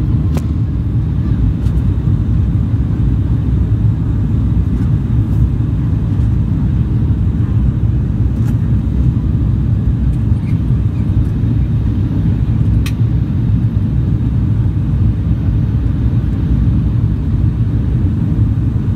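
Steady low cabin drone of an ATR 42-600's twin PW127 turboprops and propellers, heard from inside the cabin during the descent to land. A few faint ticks sit over it.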